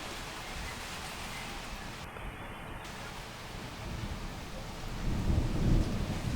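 Heavy rain falling steadily, with a low rumble of thunder swelling up in the last couple of seconds, loudest about five and a half seconds in.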